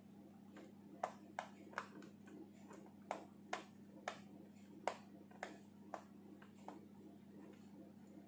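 Faint, irregular light clicks and taps, about ten in all, from a screwdriver and screws being worked on a laptop's plastic bottom case.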